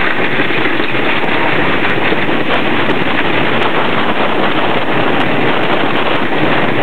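Intamin wooden roller coaster train running at speed along its wooden track: a loud, continuous rattling clatter of the wheels and cars on the track.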